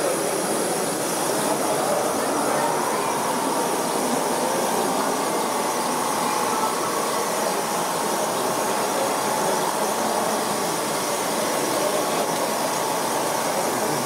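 Steady mechanical hum and hiss of radio-controlled model construction machines working, with a faint even whine running through it, over a background of hall hubbub.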